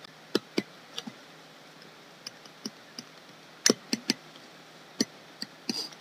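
A drawing pen tapping and clicking against a tablet while quick gesture sketches are drawn: irregular sharp clicks, some in quick pairs, loudest in a cluster about three and a half seconds in, with a short scratch of the pen near the end.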